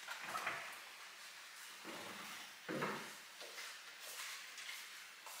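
Side-by-side refrigerator door being pulled open and a juice carton handled at the door shelves: a few soft knocks and rustles.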